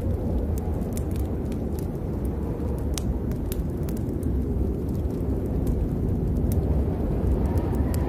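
Rainstorm: a steady deep rumble with scattered sharp ticks of drops striking close by.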